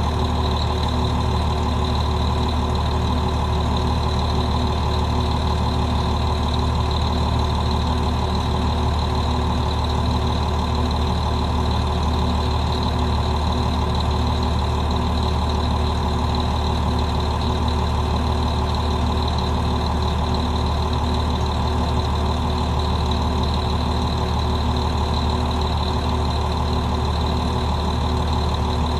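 Cummins M11E inline-six diesel in a 1996 Nova RTS-06 transit bus idling steadily, a constant drone with no change in engine speed.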